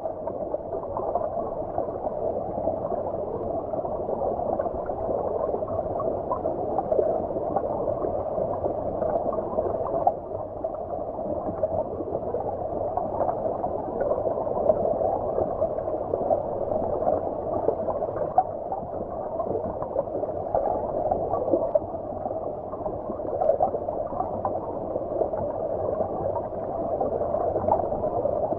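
Shallow stream water flowing, heard from beneath the surface: a steady, muffled rush with small fluttering bubbles and nothing in the higher pitches.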